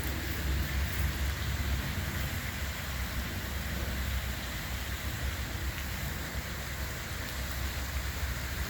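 A small dog digging in dirt with her front paws, a steady rapid scratching and pattering of soil, with a low rumble underneath.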